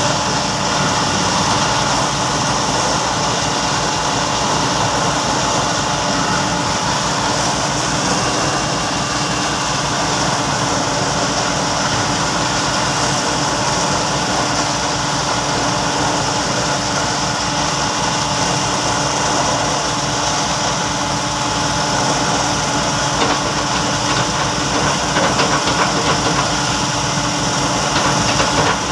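Diesel engines of a backhoe and a transit mixer truck running steadily with a fast low throb, with some added clattering in the last few seconds.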